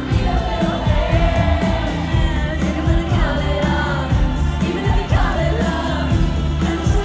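Live pop music over a festival PA: a woman sings the lead melody over a band with heavy bass and steady drum hits, recorded from the audience on a phone.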